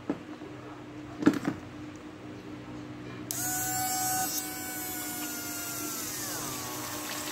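Two light knocks, then a small 12 V DC water pump's motor starts with a high whine and hiss about three seconds in. Near the end its pitch slides down and settles lower as it begins pushing water up the outlet tube.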